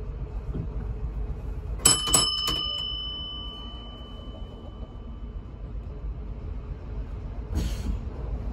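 A W class tram's bell is struck a few times in quick succession about two seconds in, its clear metallic ring dying away over several seconds. Underneath is the steady low rumble of the tram, and a short hiss comes near the end.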